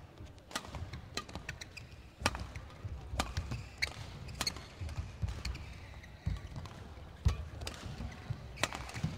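Badminton rally: rackets striking the shuttlecock in sharp cracks about once a second, with players' footsteps thudding on the court between the hits.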